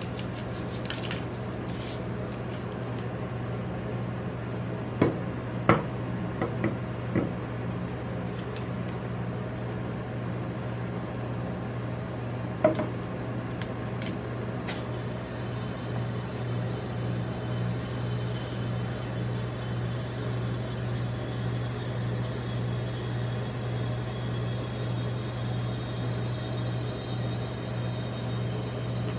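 Metal spatulas knocking a few times on a rolled-ice-cream cold plate: a short cluster about five to seven seconds in and one more near thirteen seconds. Under them runs a steady low machine hum, and a steady hiss joins about halfway.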